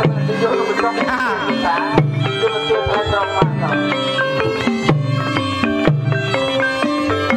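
Khmer pinpeat-style traditional ensemble accompanying a shadow puppet performance. Held melodic notes sound over low drum strokes about once a second, with a wavering high melody line in the first two seconds.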